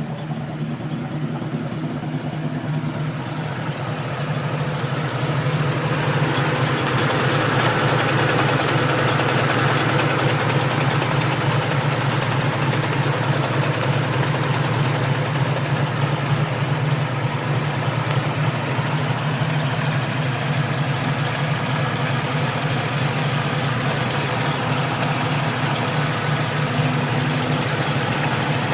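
Car engine idling steadily with an exhaust leak, heard from outside the vehicle; it gets a little louder a few seconds in.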